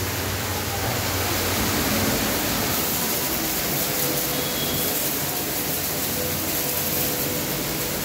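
High-pressure car washer running: an electric motor driving the pump by belt, with a steady rushing hiss of water under pressure and a faint low hum.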